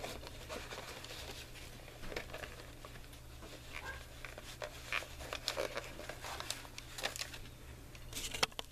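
Paper pages and a cardboard shirt-box cover rustling and tapping faintly as they are handled and shifted, in scattered short rustles over a steady low hum.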